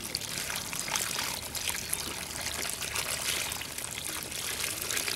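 Water gushing out of a bamboo fish trap into a woven bamboo basket full of small fish: a steady pouring splash, with many small splatters and ticks throughout as water and fish land in the basket.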